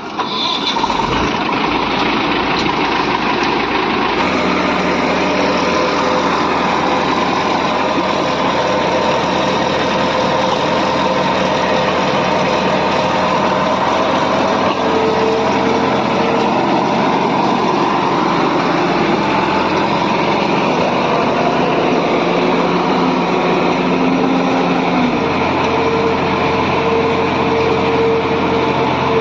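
An engine of road-repair machinery running steadily and loudly. Its note changes about four seconds in and again a few seconds before the end.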